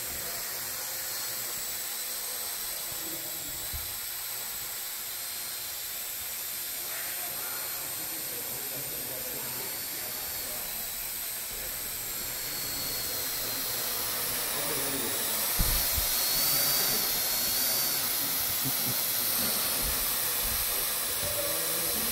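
Steady hiss with a faint high whine, growing a little louder in the second half, with a few soft low thumps in the second half.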